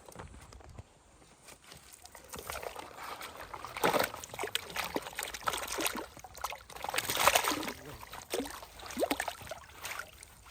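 Water splashing and sloshing in irregular bursts, loudest about four and seven seconds in.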